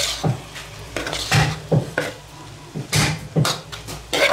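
A metal utensil scraping and knocking against a wok as stir-fried cabbage is scooped out onto a plate: several sharp clanks at irregular intervals.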